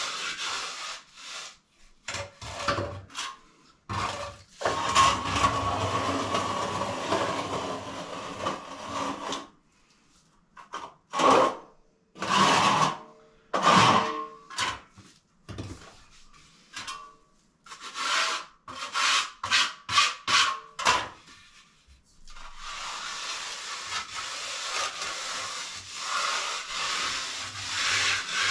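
Hand float rubbing over fresh cement render on a wall in scraping strokes: long unbroken passes, then a run of short separate strokes through the middle, then long passes again near the end.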